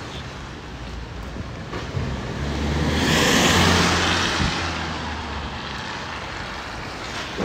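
Street traffic: a vehicle passing by, its noise swelling about three seconds in and then fading, over a steady low engine hum.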